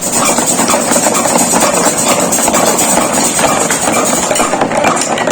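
Fast, dense drumming that cuts in abruptly at full volume: rapid stick strokes over a steady shimmer of cymbals.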